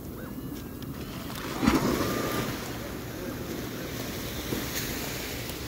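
Surf washing in with wind on the microphone, a louder rush of water about two seconds in. Over it a metal detector's target tone rises and holds briefly at one pitch as the coil passes over a signal.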